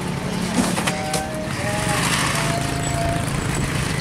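An engine running steadily under a few knocks and clunks of fish and plastic crates being handled.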